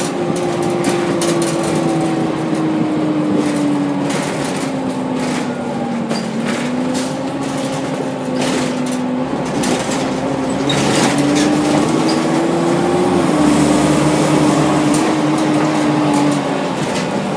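Orion V city bus with a Cummins M11 diesel and Allison B400R automatic transmission on the move: its drivetrain whine falls as the bus slows, rises again as it picks up speed, steps down at a gear change about thirteen seconds in, then fades out near the end. Clicks and rattles run through it.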